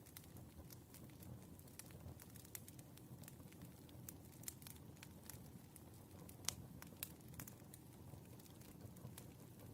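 Wood fire burning: a faint low rumble with irregular crackles and pops, the sharpest about six and a half seconds in.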